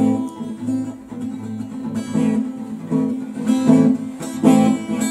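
Acoustic guitar strummed in a steady rhythm: the chordal introduction to a Russian courtyard song, played before the singing comes in.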